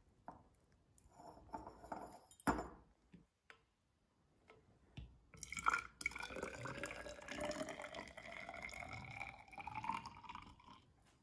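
Sodium thiosulfate solution poured from a bottle into a tall plastic measuring cylinder. A few handling knocks come first, then from about halfway a steady pour whose pitch rises as the cylinder fills.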